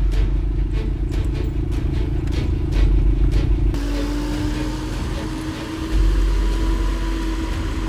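Van engine and road rumble, heard first from inside the cabin with rattling, then from outside after about four seconds as the van drives off, its engine note rising slightly.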